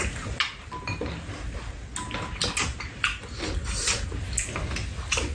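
Spoons and chopsticks clinking and scraping against ceramic bowls at a meal, in irregular light clicks a few times a second.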